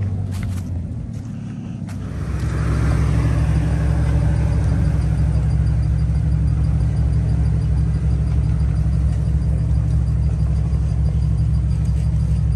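Jeep engine and drivetrain running as it drives: a steady low rumble that eases slightly, then picks up again about two seconds in and holds steady.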